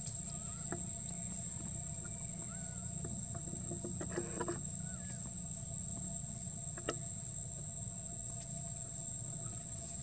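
Steady high-pitched insect drone over a low rumble, with a few faint short chirps and one sharp click about seven seconds in.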